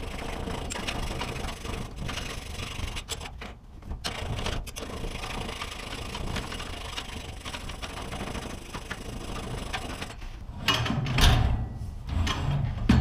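Steady metal-on-metal scraping and rubbing at a garage door's steel torsion shaft where it passes through its end bearing plate; the shaft has burrs knurled up by pulley set screws. Louder knocks and handling noises come in near the end.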